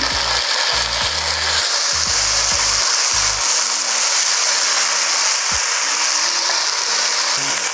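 Onions, ginger-garlic paste and freshly added tomatoes sizzling in hot oil in a pot. The sizzle gets stronger about two seconds in, and there are intermittent low rumbles in the first few seconds.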